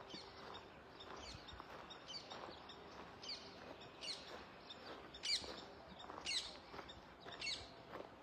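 Birds chirping: short, sharp repeated calls roughly once a second, growing louder in the second half.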